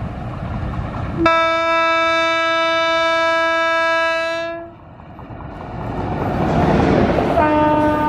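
Electric locomotive's air horn sounding one long steady blast of about three and a half seconds. Then the rumble of the train passing close grows louder, and a second horn blast starts near the end.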